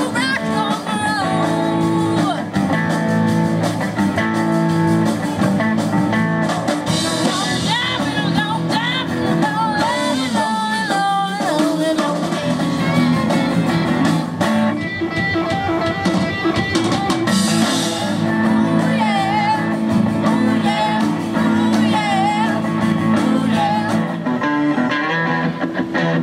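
Live rock band playing: electric guitars, bass guitar and drum kit, with a girl singing lead.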